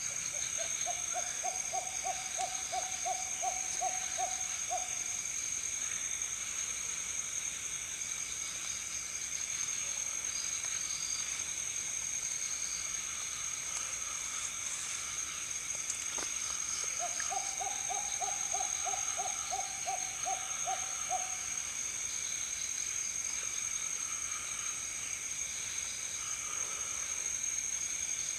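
A night bird calling twice, each call a rapid run of about a dozen hooting notes, about three a second, lasting four to five seconds: once at the start and again about 17 seconds in. A steady high-pitched chorus of night insects buzzes throughout.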